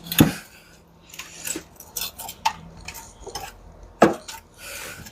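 Metal hand tools clinking and knocking against engine parts: a string of sharp, irregular clanks, loudest just after the start and again about four seconds in.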